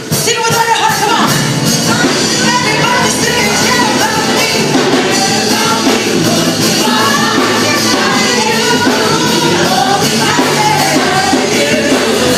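Live church worship music: keyboard-led band with drums and congregation singing, played continuously.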